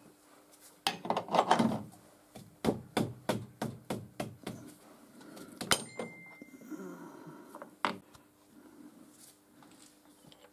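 Hand work on a small freshly milled steel block: a quick run of short, sharp strokes or taps, about three a second, followed by a few scattered knocks.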